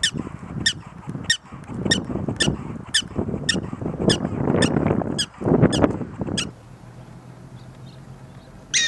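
Prairie dog giving a run of sharp, high chirping barks, just under two a second, a repeated alarm call. Low noise runs under the calls. Both stop about six and a half seconds in, and a single bark follows near the end.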